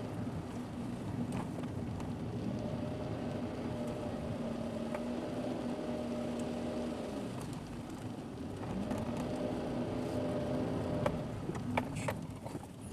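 Car engine running steadily under load, heard from inside the cabin. Its pitch falls about seven seconds in and climbs again, and a few sharp clicks come near the end.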